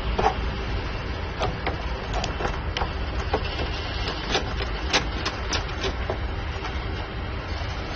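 Irregular small clicks and taps as wires are pushed into a miniature circuit breaker's terminals and a screwdriver works the terminal screws, over a steady low rumble.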